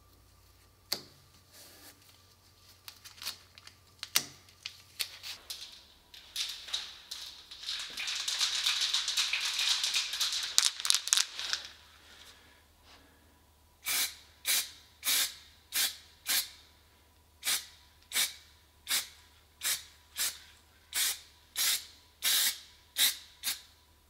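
Masking tape is pulled off the roll and pressed down, with scattered crackles and then a long tearing rip of tape unrolling. After a pause, an aerosol spray can gives about fifteen short, evenly spaced bursts.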